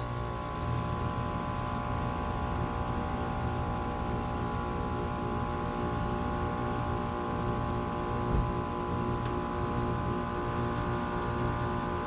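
2005 Carrier 38BYC 4-ton heat pump outdoor unit running steadily in heat mode just after starting up: an even compressor hum with a ring of steady tones over the fan's rush. A brief low thump about eight seconds in.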